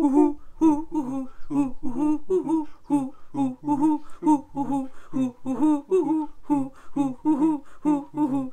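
Two voices singing a quick, even run of "hoo" syllables in imitation of an owl, about three a second on a bouncing tune.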